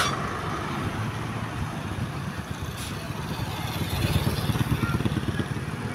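A road vehicle's engine running close by, swelling louder about four seconds in, with a short sharp burst of noise at the very start and a fainter one about three seconds in. No telolet horn melody is heard.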